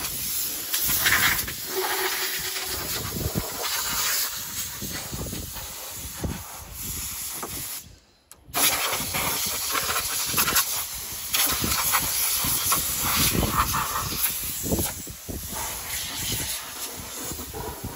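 Compressed-air blow gun hissing as it blows dust off a tractor, varying in strength as the nozzle is worked, with a brief break about eight seconds in.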